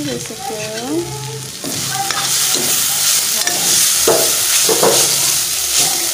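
Mushrooms, potatoes and spice masala frying in oil in a metal pot, sizzling, with the hiss getting louder about a second and a half in. A spoon scrapes and knocks against the pot a few times as the mix is stirred.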